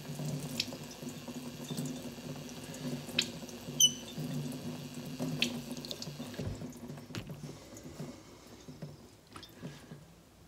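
Kitchen sink faucet running water onto a sharpening stone while a straight razor is rinsed under the stream, with a few sharp metallic clicks and taps from the blade. The water sound drops off after about six seconds.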